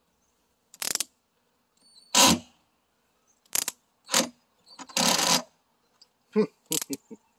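Cordless drill driving screws into a metal mounting bracket in several short bursts of the trigger, each a second or less, with pauses between. It is fed gently so as not to strip the screw holes.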